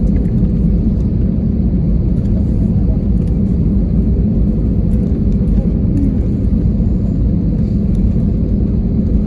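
Cabin noise of an Airbus A320 rolling out on a wet runway just after touchdown, ground spoilers up: a steady, loud low rumble of engines and wheels, with a faint steady hum above it.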